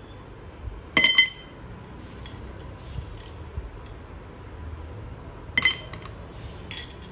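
A metal fork scraping ice cubes out of a glass bowl and dropping them into a glass tumbler: sharp, ringing glass clinks about a second in and twice near the end, with a few light ticks between.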